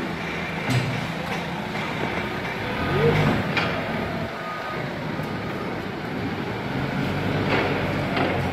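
Hyster 3.0 Fortens forklift's engine running as the truck drives and manoeuvres, revving up briefly about three seconds in. A few sharp knocks come over it.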